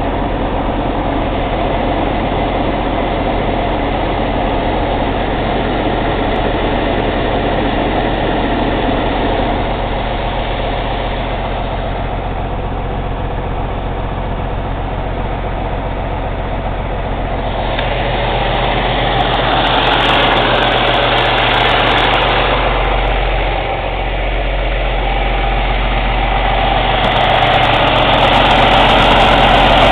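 Cummins ISX CM2250 diesel engine running steadily during a DPF regeneration. Its sound grows louder about 18 seconds in and again near the end.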